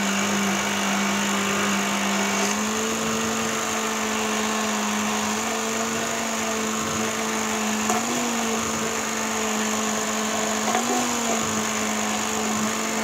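Immersion hand blender running steadily in a tall plastic beaker, emulsifying egg and sunflower oil into mayonnaise. Its motor pitch steps up slightly about two and a half seconds in and wavers briefly twice later on.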